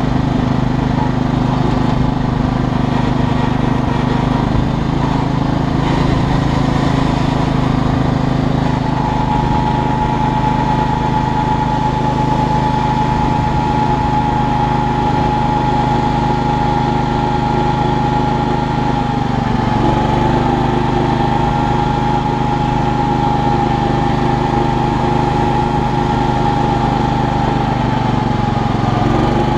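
Riding lawn tractor's small engine running steadily under way, with a steady high whine over the engine hum that shifts slightly in pitch twice.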